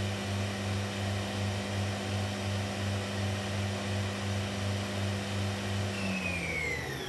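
Mighty Viper PRW-5340 machining center's spindle running free at its maximum 6000 RPM, a steady hum that pulses about three times a second. About six seconds in it begins to spin down, its whine falling in pitch.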